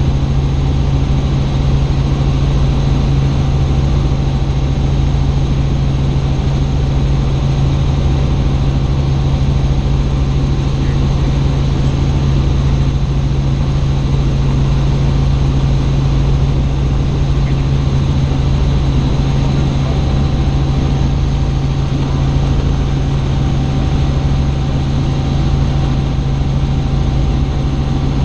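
Helicopter in steady flight: a loud, even drone of rotor and engine with a strong, constant low hum.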